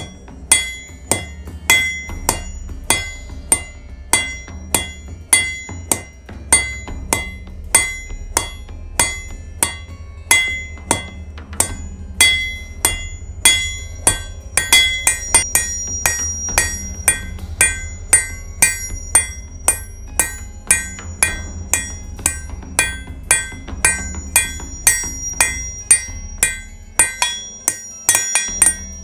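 Hand hammer striking red-hot mild steel on an anvil, about two blows a second, each blow ringing: the end of the bar being drawn out into a taper.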